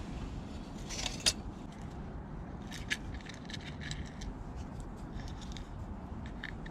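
Wood fire crackling, with irregular sharp pops (a loud cluster about a second in) over a steady low rush.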